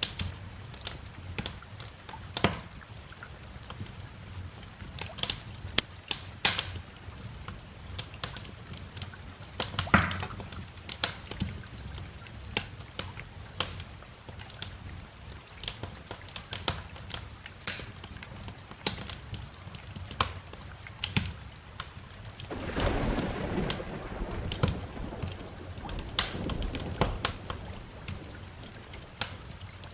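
Wood fire crackling with frequent sharp, irregular pops over a faint steady hiss of rain. About three-quarters of the way through, a low rumble of thunder swells for several seconds and fades.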